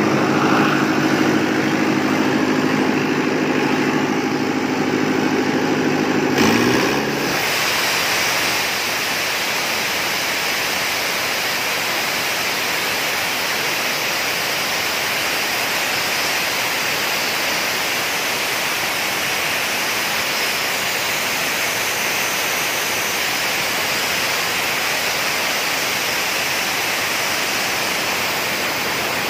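Portable engine-driven air compressor running. For the first several seconds there is a steady engine hum. About seven seconds in the note rises and gives way to a steady rushing hiss.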